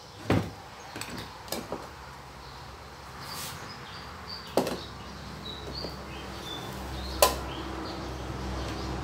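Scattered knocks and clunks as a clay mortar and its wooden pestle are handled and set down, the loudest a sharp knock about seven seconds in. Faint high chirps come in between.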